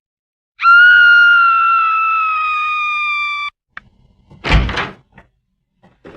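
Stock sound-effect clips previewed one after another in a phone video-editor app. The first is a loud held tone that sinks slowly in pitch and is cut off abruptly after about three seconds. A single heavy thud comes about a second later, followed by a few faint clicks.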